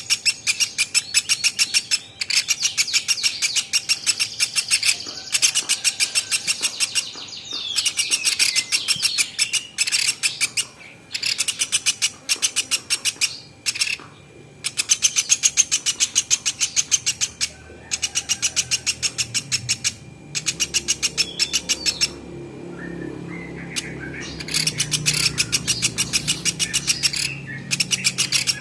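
Platuk beras singing: rapid, high-pitched chirping trills in repeated bursts of one to three seconds with short pauses between them, as used for a masteran tutor recording for caged birds.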